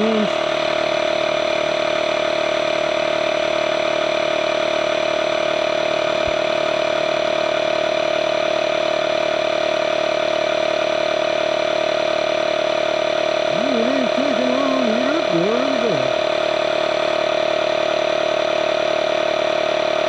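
DeWalt 20V cordless tire inflator's compressor running steadily as it pumps up a flat tractor tire toward a 14 psi preset, a constant mechanical hum with a high steady tone.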